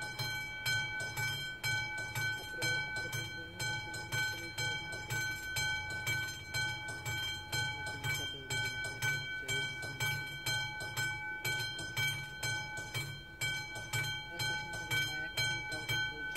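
Classic electric warning bell of an AŽD 71 railway level-crossing signal ringing in a steady, even run of strikes, each leaving a bright ringing tone: the crossing is active, warning that a train is approaching.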